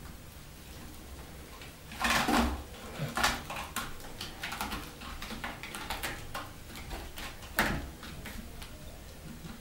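Kittens' claws scratching and scrabbling on a sisal-rope scratching post as they climb it, with bumps against the cat tree. A loud scuffle comes about two seconds in and a sharp bump near the end.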